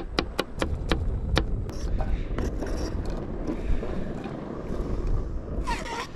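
A kitchen knife chops an onion on a plastic cutting board, several quick chops in the first second and a half. Then the blade scrapes and slides the diced onion across the board into a frying pan. Wind rumbles on the microphone throughout.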